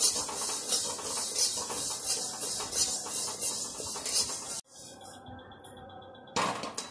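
Whole spices being dry-roasted in a pan without oil, stirred with a spatula: a steady scraping, rattling hiss with repeated stirring strokes. The sound cuts off abruptly about two-thirds of the way through, leaving a quieter background, and a brief clatter comes near the end.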